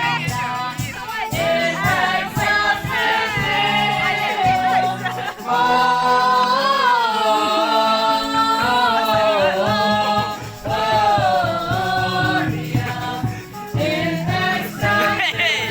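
Several voices singing a slow song over a steady instrumental backing, the notes held long with a waver in pitch.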